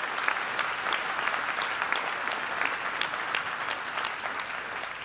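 Audience applauding: a steady patter of many people clapping that eases a little near the end.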